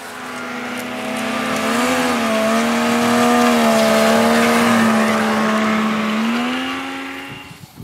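Yamaha Venture snowmobile engine passing by at a steady pitch: the sound builds up, is loudest in the middle, then fades away near the end.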